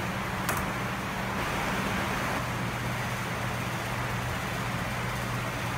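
Steady low machine hum with an even hiss from the shop floor, and one sharp click about half a second in.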